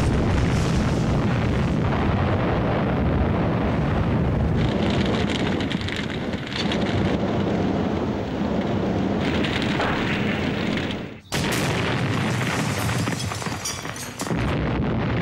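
Dense, continuous rumble of explosions and falling debris as buildings are blown up, broken by a sudden brief gap about eleven seconds in.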